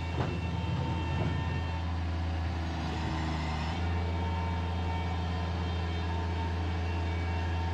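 Heavy equipment engine running steadily with a deep, even hum.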